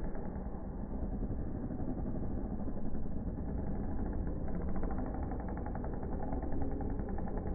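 Dirt bike engines running on a supercross track. From about four seconds in, one bike's engine comes through more clearly with a rapid pulsing note as it revs.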